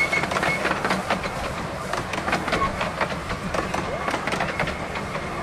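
10¼-inch gauge miniature railway carriages rolling past, their wheels clicking over the rail joints in a quick, irregular clatter over a steady rumble.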